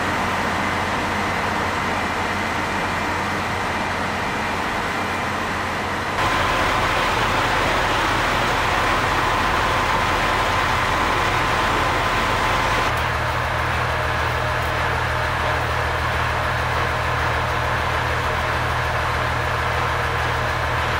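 Steady engine hum of trains idling at a station platform, with station background noise. The background changes abruptly about six seconds in and again about thirteen seconds in.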